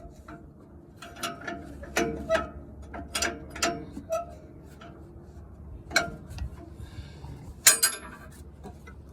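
Hand tools working on a stuck exhaust O2 sensor: a string of separate sharp metallic clicks and clinks with short ringing, the loudest one near the end.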